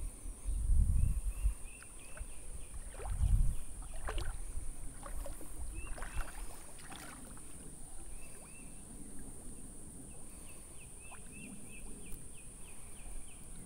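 Creek water sloshing and splashing around wading legs, with two heavier surges about half a second and three seconds in. Short chirps repeat in quick series in the background.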